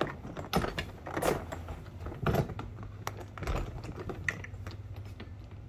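Oru Bay ST folding kayak's plastic hull being unfolded by hand: an irregular run of clicks, crackles and knocks as the folded polypropylene sheet flexes and its creases open out.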